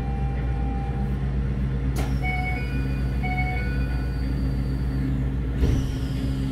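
Keikyu 1000 series train's doors closing: a click, a short two-note door chime sounding twice with a faint whine slowly falling in pitch, then the doors thud shut about five and a half seconds in. Under it runs the steady low hum of the stopped train's equipment.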